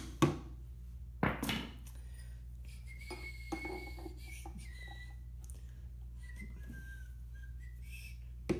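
Hammer blows on a pin punch driving a roll pin through a distributor gear and shaft held in a bench vise: a few sharp metal strikes in the first second and a half and one more near the end. In between, faint whistled notes that step in pitch.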